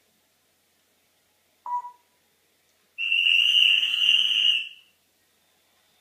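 African grey parrot calling: a short note about a second and a half in, then one loud, high-pitched whistling call lasting nearly two seconds.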